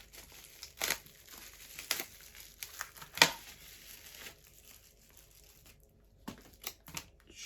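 Plastic parcel packaging being crinkled and torn open by hand, in sharp rustles about a second apart, the loudest about three seconds in. It then goes quieter, with a few light clicks and handling sounds near the end.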